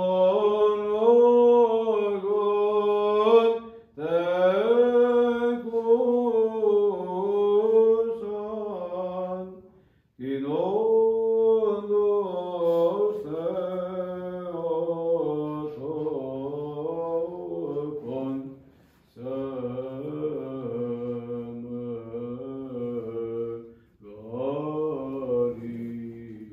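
Unaccompanied Orthodox liturgical chant by a solo voice, sung in long melodic phrases separated by brief pauses for breath.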